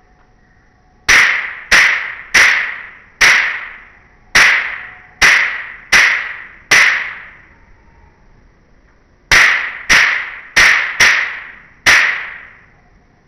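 Mosquito bat converted into a toy gun, firing a quick irregular run of sharp shot-like cracks, each ringing off briefly. There are eight shots, a pause of about two seconds, then five more.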